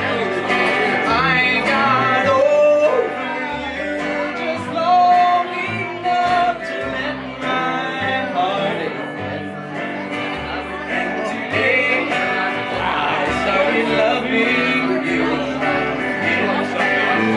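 A live acoustic band playing: a man sings over acoustic guitar, with an upright double bass plucking a walking line of deep notes.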